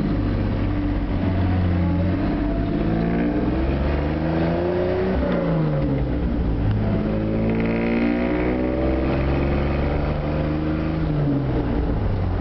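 1952 Chevrolet pickup's 235 cubic inch inline six running under way, heard from inside the cab. Its note climbs as the truck accelerates, drops back about five seconds in, climbs again, holds, and falls away near the end.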